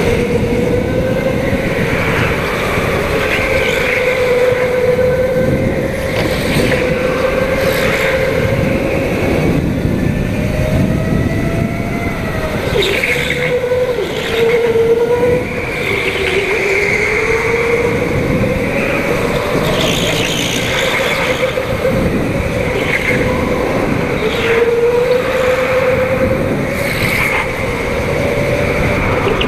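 Go-kart engine running hard, heard from on board, its pitch wavering up and down as the kart lifts and accelerates through the corners, with higher squealing tones coming and going.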